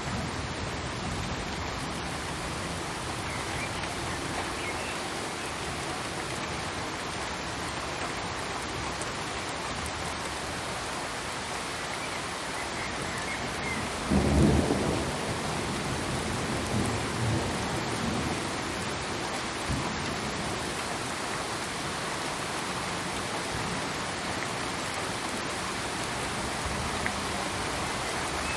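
Steady rain falling, an even hiss, with a low rumble of thunder about halfway through and a few fainter low rumbles after it.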